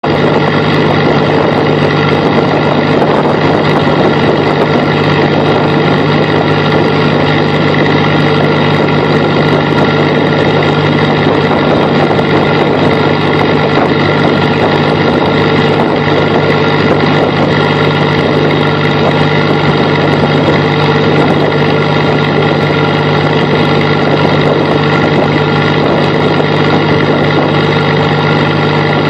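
Fishing boat's engine running steadily under way: a loud, even drone with a strong low hum.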